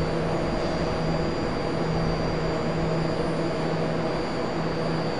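Stationary BART train of Bombardier MOVIA cars idling at the platform with its doors open, its onboard equipment giving a steady hum with a thin high whine above it.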